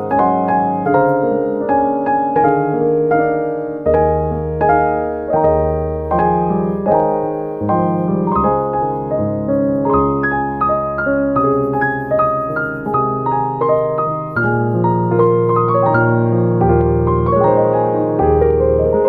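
Background music played on piano: a calm melody over sustained bass notes, with a regular, even pulse of notes.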